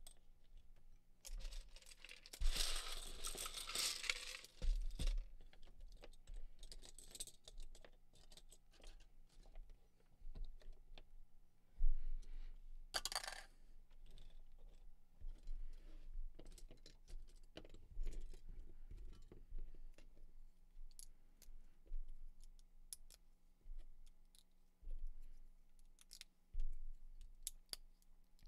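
Loose plastic Lego tiles and bricks being handled and snapped together by hand: scattered small clicks and clatter. A longer rattle of pieces comes about two seconds in, and a short one near the middle.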